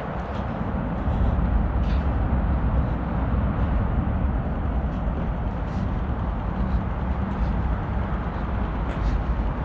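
City street traffic: a steady rumble of car engines and tyres that grows louder about a second in as vehicles pass close by.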